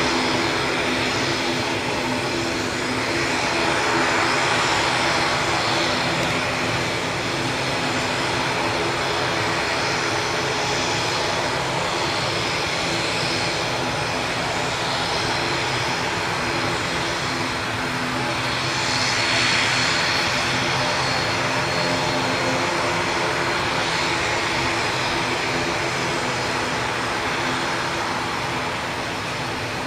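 ATR 72-500's twin turboprop engines and propellers running at taxi power, a steady drone with a hum of steady tones, swelling a little about four seconds in and again about twenty seconds in.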